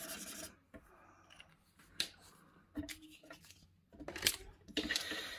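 Plastic marker pens and their caps being handled: a few short, sharp clicks and taps with quiet gaps between them.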